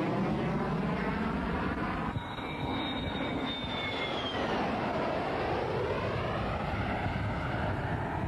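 Low flyby of a MiG-25 fighter, its twin Tumansky R-15 turbojets giving a continuous jet roar that sweeps as the aircraft passes. A high turbine whine slides down in pitch about two to four seconds in.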